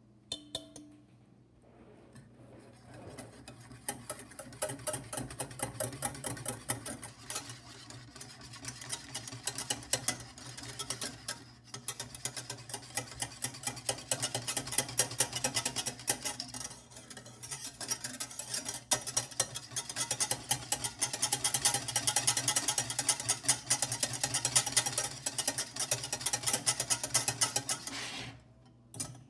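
Wire whisk beating a thin chocolate mixture fast in a stainless steel saucepan, its wires ticking against the pan in a quick, uneven rattle. It starts about two seconds in and stops near the end, with a low steady hum underneath.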